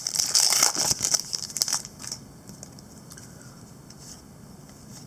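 Foil wrapper of an NBA Hoops basketball card pack being torn open and crinkled for about the first two seconds, then only a few faint clicks.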